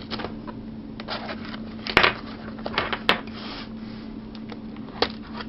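A speedcube's retail box being handled and opened: scattered light clicks and rustles of cardboard and plastic, with sharper clicks about two, three and five seconds in.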